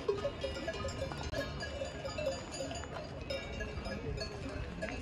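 Several livestock bells clanking irregularly, their tones overlapping at different pitches.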